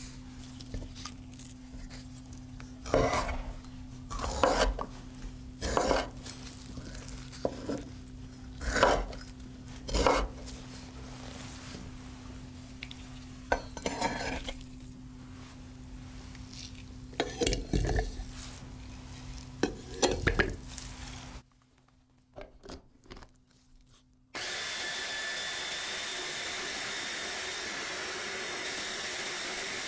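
Chef's knife chopping soft canned peach on a wooden cutting board: irregular single and double knife strikes against the board. After a short pause with a few light clicks, an electric mini food chopper starts with about five seconds left and runs steadily, blending the diced peach.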